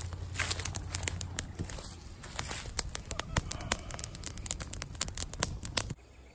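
Small fire of dry twigs burning, crackling with many sharp pops. It cuts off abruptly near the end.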